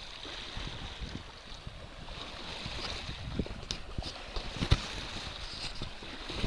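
Wind on the microphone and open-sea waves slapping and splashing, with irregular low buffeting thumps and one sharper knock a little under five seconds in.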